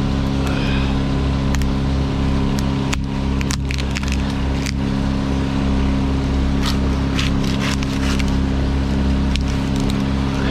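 A heavy engine running at a steady speed, with scattered sharp cracks and snaps of wood.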